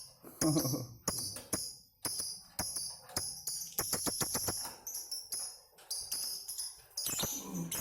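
Lovebirds chattering together in a long run of shrill, rapid chirps and clicks: the ngekek song. A low voice is heard briefly about half a second in and again near the end.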